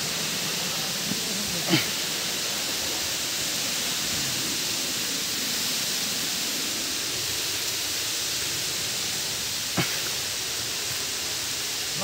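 Steady rushing of a waterfall, an even hiss that holds at one level throughout, with a single click about ten seconds in.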